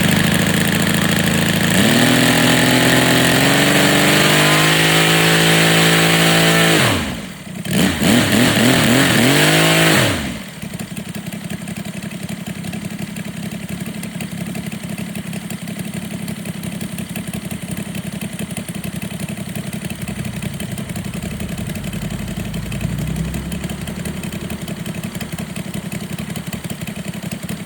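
Saito FG-60R3 three-cylinder four-stroke radial gasoline model-aircraft engine running at high throttle, its pitch climbing. It is throttled down sharply about seven seconds in, opened up again, then cut back at about ten seconds to a steady idle for the rest.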